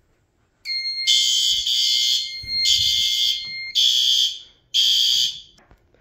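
Fire alarm horn strobes going off in an alarm test, sounding repeated blasts of about a second each with short gaps, starting just under a second in. A steady high tone runs under the first few blasts. The horns are extremely loud, one having been set to high volume by mistake.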